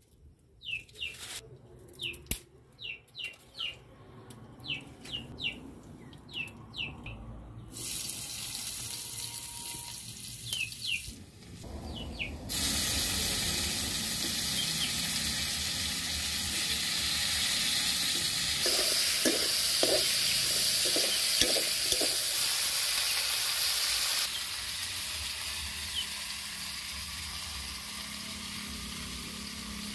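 Small birds chirping in quick, short calls, then a frying hiss that turns into a loud, steady sizzle about twelve seconds in as sliced tomatoes go into hot oil in an iron wok.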